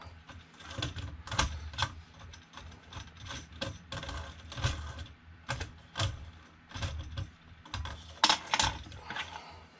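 Irregular clicks and light knocks of parts being handled while a 3D printer's heated bed is worked loose, with the loudest clicks near the end.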